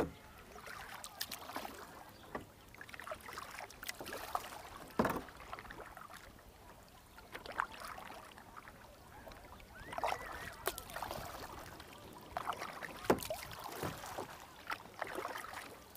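Kayak on the water: paddle splashes and water sloshing, with irregular sharp clicks and knocks.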